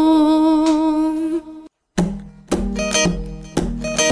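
Background music: a sung note is held, then stops about a second and a half in. After a short gap, plucked acoustic guitar notes start, one at a time.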